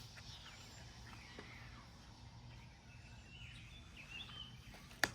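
Quiet outdoor background: faint bird chirps over a low steady rumble, with one sharp click near the end.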